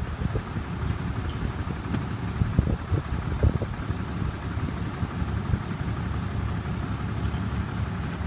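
Low, uneven rumble of a pickup truck's engine running, mixed with wind buffeting the microphone.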